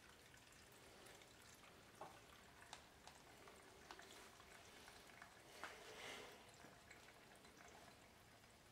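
Very faint trickle of gasoline being poured from a plastic gas can into a small tiller's fuel tank, with a few light clicks.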